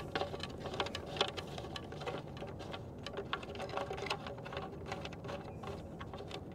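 Light, irregular clicks and ticks of hands threading screws into the reflector mount on the satellite dish's carbon-fibre boom, starting each a few threads in without tightening.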